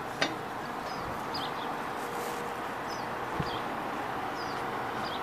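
A small bird chirping: short high chirps that fall in pitch, every half second to a second, over the steady hum of street ambience. There is one sharp click just after the start.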